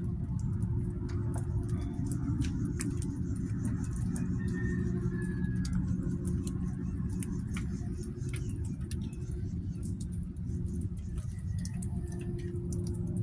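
Scattered light ticks of rain dripping onto leaves, over a steady low hum.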